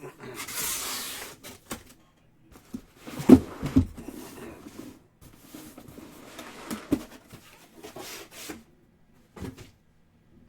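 A sealed trading-card box being unwrapped and opened by hand: a short burst of rustling wrapper near the start, then two heavy thumps and a scatter of clicks and taps as the box is handled.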